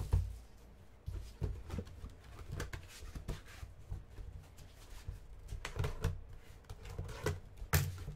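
Sealed cardboard trading-card boxes being handled: a string of soft knocks, taps and rustles as the boxes are picked up, set down and shuffled, with sharper knocks at the start, about a second in, around six seconds and near the end.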